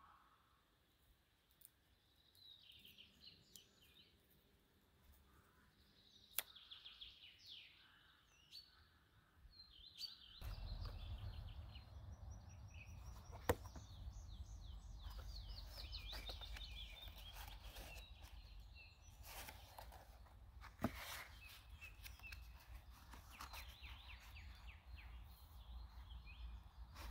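Small birds singing and chirping in short trills, with a few sharp clicks. A steady low rumble starts about ten seconds in.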